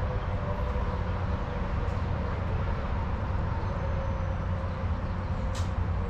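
Wind buffeting the camera microphone: a steady, fluttering low rumble, with a brief click about five and a half seconds in.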